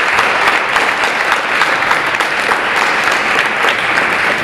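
A group of people applauding: many hands clapping at once in a dense, steady patter that fades a little near the end.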